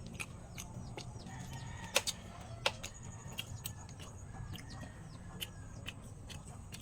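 Chickens clucking faintly, over a string of short, sharp wet clicks and smacks from chewing banana peel.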